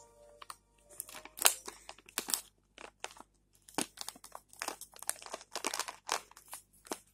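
Plastic Dreamies cat-treat packet crinkling as a kitten noses and paws into it: irregular sharp crackles that start about a second in and keep going in quick bunches.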